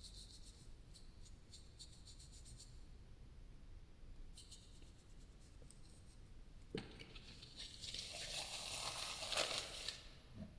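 Close-miked ASMR trigger sounds: soft, fine scratching and ticking, then from about seven seconds a louder scratchy rustle lasting about three seconds.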